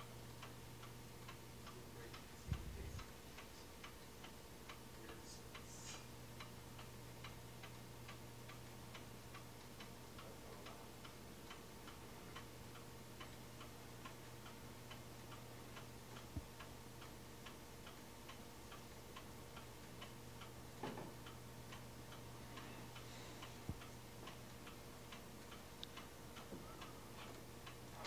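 Faint, steady, even ticking over a constant low hum, with one short soft thump about two and a half seconds in.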